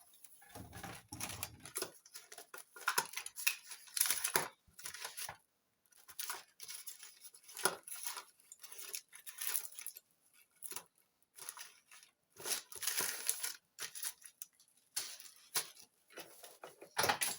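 Rummaging through small parts and packaging: irregular rustling and crinkling of plastic bags, with light clicks and clatter of small objects being moved.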